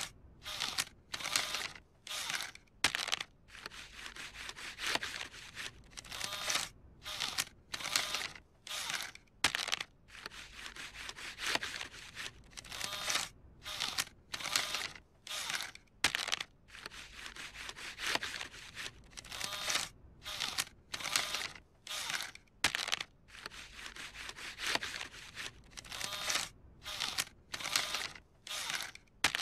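Cartoon sound effect of a coin-op ride's bill slot feeding a crumpled paper bill in and pushing it back out, over and over: a string of short, scratchy paper-rustling bursts, one or two a second. The machine is refusing the crumpled bill.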